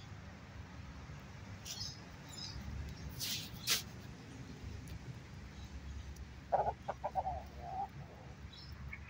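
Australorp chickens clucking: a quick run of clucks about two-thirds of the way through, the loudest sound here. Before it come a few short high chirps, over a steady low background rumble.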